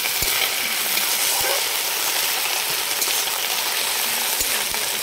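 Ginger, garlic and green chilli paste frying in hot oil in a wok, a steady hiss of sizzling.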